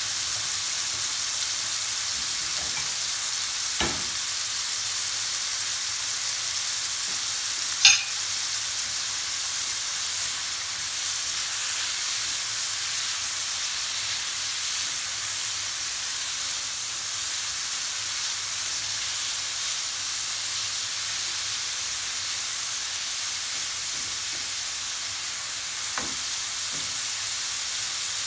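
Shrimp sizzling in butter and oil in a nonstick frying pan with a steady hiss, stirred with a spatula; a sharp knock about eight seconds in.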